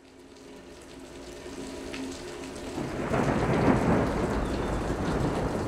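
Storm sounds: rain and a deep rumble of thunder fading in from very quiet, swelling to their loudest about three to four seconds in.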